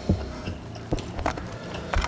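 Close-miked eating sounds: crispy fried chicken being bitten and chewed, with a handful of sharp crunches, the loudest just after the start.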